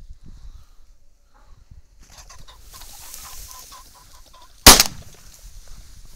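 A rooster ring-necked pheasant flushes with a rush of wings and a quick run of cackling notes. About a second later a shotgun fires once, sharply and loudly.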